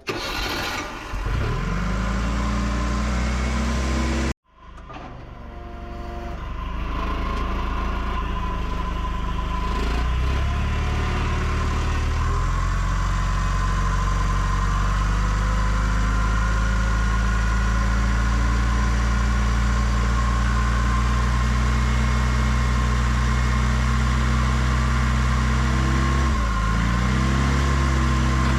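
Forklift engine starting and spinning up, then, after a sudden break, running steadily with a steady high whine. Its pitch dips and picks back up near the end.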